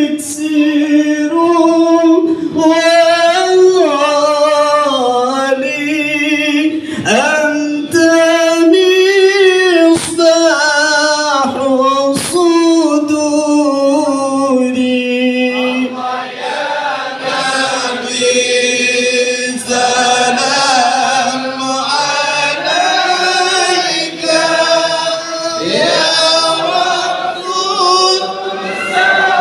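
A congregation singing an Arabic devotional chant (sholawat) together, in long held, wavering melodic lines.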